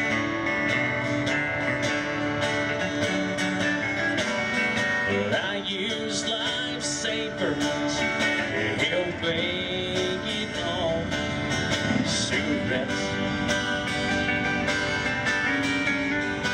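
Country music with strummed acoustic guitar, played without singing in this stretch.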